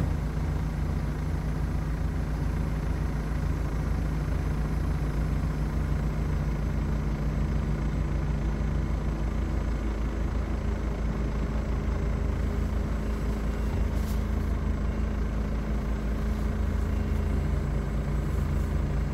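Heavy truck's diesel engine idling steadily with a low, even throb; its tone shifts slightly about halfway through.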